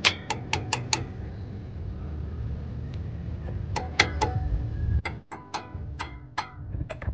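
Ratchet wrench clicking: a quick run of about five clicks a second at the start, then pauses and a few scattered clicks as the brake caliper bolts are worked.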